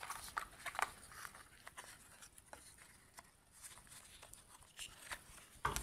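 Faint, scattered small clicks and taps of a cardboard box of Singer flat cams being opened and the black cams inside it being handled.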